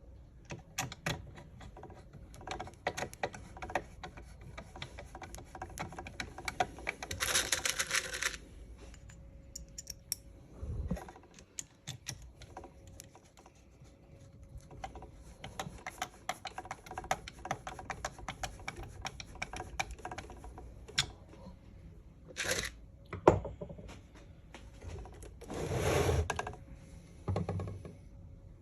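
Small metal screws and plastic parts being handled and fastened, giving a run of light clicks and rattles. Two brief rustling bursts, and about two-thirds of the way in, a single sharp knock.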